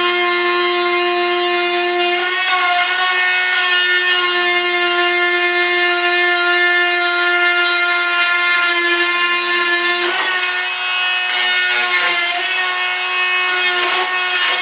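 Handheld electric rotary tool running at a steady high whine while trimming excess fiberglass cloth off a molded model wing tip; the pitch dips briefly a few times as it bites into the glass.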